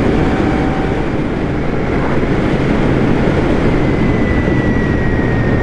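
Royal Enfield Shotgun 650's 648 cc parallel-twin engine running at a steady cruise, with wind noise rushing over the microphone.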